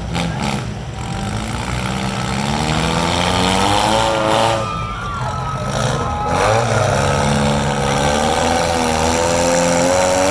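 Four-cylinder demolition derby car engines revving hard, their pitch rising and falling again and again.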